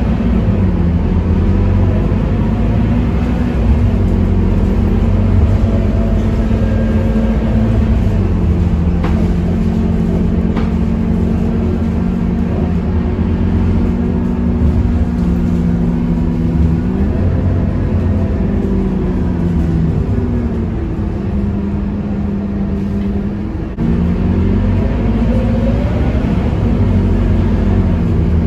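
Scania K230UB Euro 4 bus's five-cylinder diesel engine heard from inside the passenger cabin, running under way, its pitch rising and falling several times as the bus changes speed. Near the end the sound drops briefly, then comes back suddenly.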